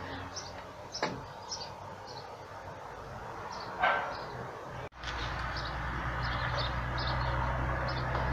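Small birds chirping over and over in the background, with a faint click about a second in and a single dog bark about four seconds in, the loudest sound. Near the middle the sound breaks off abruptly and a steady low hum follows.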